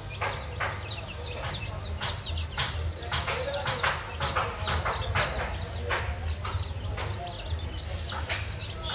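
A brood of baby chickens peeping constantly, many quick high chirps that each drop in pitch, with irregular sharp taps from chicks pecking at a plastic feed tray.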